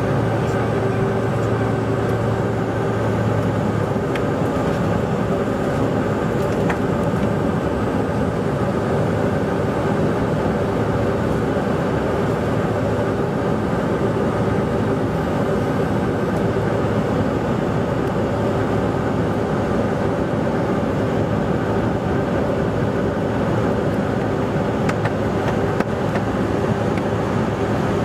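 Steady engine and airflow noise from inside the cabin of a Bombardier CRJ900, its two rear-mounted GE CF34 turbofans running evenly at a constant level.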